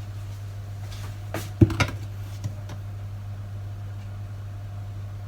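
A spoon clinking against a bowl a few times, in quick succession about a second and a half in, over a steady low hum.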